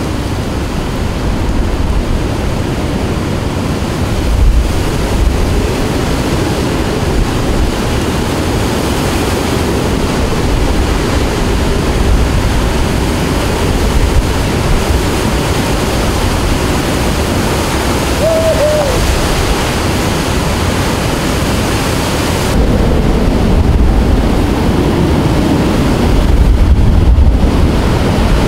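Hurricane-force eyewall wind and driving rain, a dense steady rush with heavy wind buffeting on the microphone. It gets louder about three-quarters of the way through.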